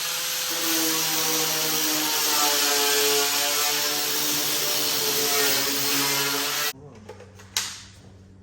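A handheld power tool's motor runs with a loud whine and hiss, its pitch sagging and rising as it is worked. It shuts off abruptly near the end, leaving a steady low hum and a single click.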